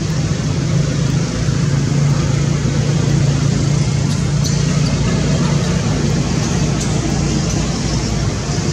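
Steady outdoor background noise: a constant low hum under an even hiss, with a few faint clicks about halfway through.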